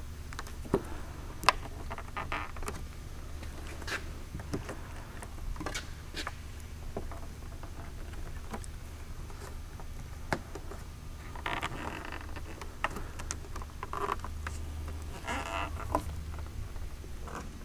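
Old rubber-and-felt beltline weatherstrip being pried and worked loose from a car door's window ledge with fingers and a plastic trim tool: scattered sharp clicks and short bouts of scratchy rubbing and scraping, with two sharper clicks in the first couple of seconds, over a steady low hum.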